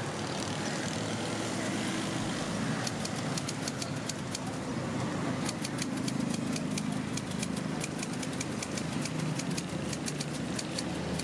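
Manual typewriter keys clacking in quick, irregular runs, starting about three seconds in, over a steady hum of road traffic.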